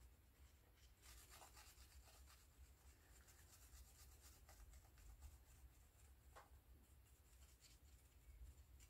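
Faint, scratchy rubbing of a round burnishing stone worked back and forth over the surface of a leather-hard clay pot. The strokes start about a second in and repeat unevenly.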